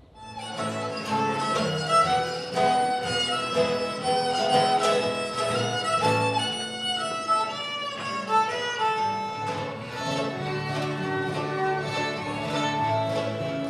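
A fiddle playing a tune, starting about half a second in.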